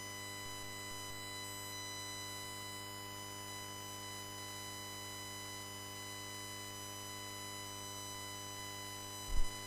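Steady electrical hum with a buzzy edge in the audio feed, unchanging throughout. A brief low thump sounds near the end.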